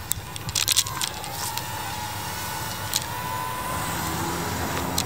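Spacekey DC-014 mini quadcopter in flight, its propellers giving a steady high whine whose pitch wavers slightly. A cluster of sharp clicks comes under a second in, and another at about three seconds.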